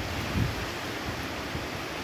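Strong wind blowing over a steady rush of noise, with a gust buffeting the microphone about half a second in.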